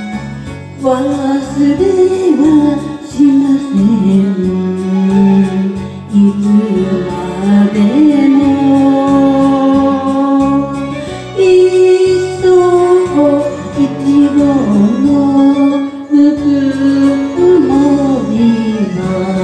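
A song sung over instrumental backing: a solo voice comes in about a second in and holds long notes that waver and slide between pitches.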